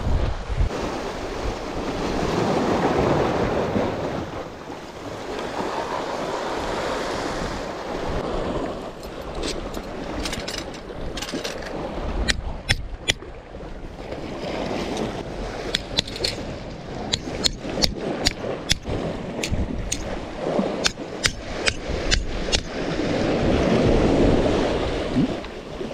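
Sea surf washing on a rocky shore, swelling and falling back every few seconds. Through the middle of the stretch come a string of sharp, irregular clicks and taps.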